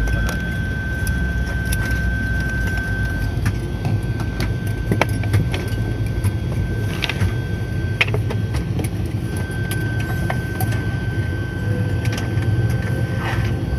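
Turboprop airliner's engines running, heard inside the cabin after landing: a steady low rumble with a constant high whine, and scattered small clicks and rattles from the cabin.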